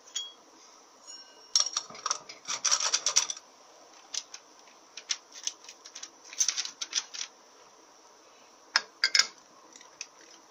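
Metal automatic-transmission clutch parts being handled and fitted together: the drum, hub and plates click and scrape against each other in short clusters.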